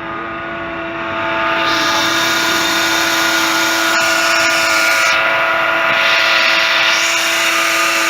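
Ford Ikon 1.6-litre engine running with a loud, steady squealing whine over it, which grows louder about a second and a half in. The squeal is a fault noise.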